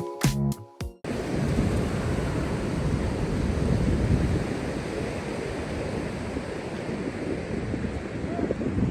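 Wind blowing across the microphone on an open beach, with the surf of the waves behind it, a steady rushing noise. A stretch of music cuts off about a second in.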